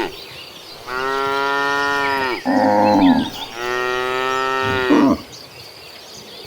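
Cattle mooing: a long drawn-out moo about a second in, a short lower moo right after it, then another long moo, each long call dropping in pitch as it ends.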